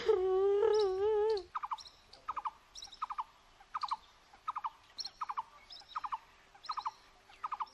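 A wavering hummed tone for about the first second and a half, then a small bird chirping in short bursts of rapid notes, two or three bursts a second.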